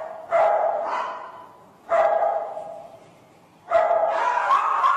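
Great Dane giving long, drawn-out barking calls: three in a row, each fading away over a second or so, the last held longer.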